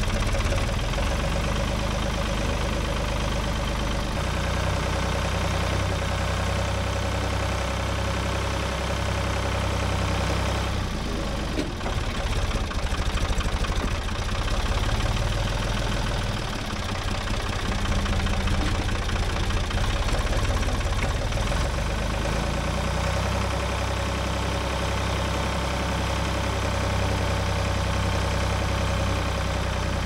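Diesel engine of a Ford 555 backhoe running steadily as the machine is driven. The engine note shifts slightly a few times and dips briefly about twelve seconds in.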